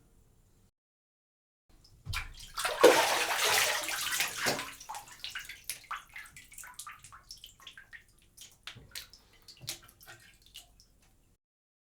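A person rising out of a filled bathtub: a sudden surge of sloshing water about two seconds in, then water streaming off the body back into the tub and thinning into scattered drips that die away.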